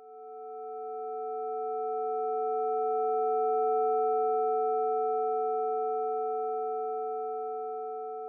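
A synthesised chord of steady sine tones, the sonification of the red-wine 'quality' histogram, with each tone's strength set by the data's spectral profile. It swells in over about four seconds and then slowly fades, the two middle tones loudest.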